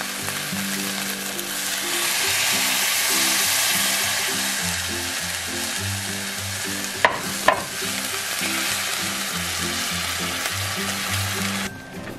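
Sauce base sizzling hard in a hot stainless steel pan as it is stirred with a wooden spoon, the sizzle swelling about two seconds in as the red annatto liquid hits the pan; two sharp knocks come a little past halfway. Background music with a stepping bass line runs underneath, and the sizzle cuts off just before the end.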